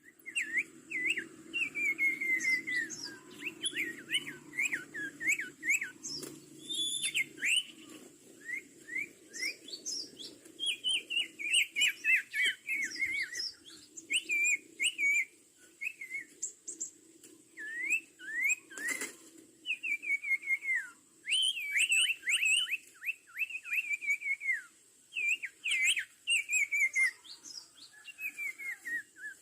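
Sirtu bird calling busily in rapid runs of short whistled notes, many sweeping downward, with only brief pauses between runs.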